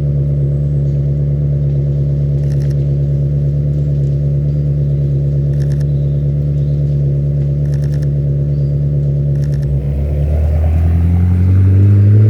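Ferrari 360's flat-plane V8 running at a steady, even note for about ten seconds. Near the end its pitch dips and then climbs steadily as the car accelerates, getting louder.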